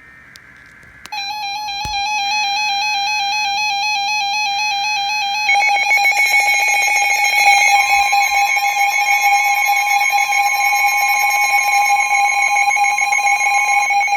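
Emergency Alert System attention signal: an electronic alarm tone with a rapid warble. It switches on about a second in and gets louder about five seconds in as further steady tones join.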